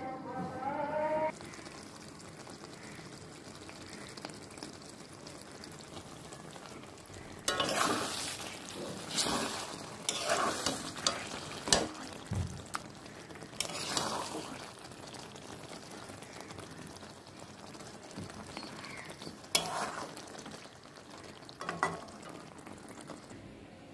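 Thick curry sizzling in a kadai while a metal spatula scrapes and stirs it. The scraping comes in bursts from about seven seconds in, with a couple of sharp clinks against the pan near the end. A brief pitched tone cuts off about a second in.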